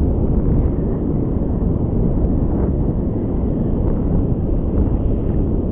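Strong wind buffeting the microphone: a steady, loud low rumble.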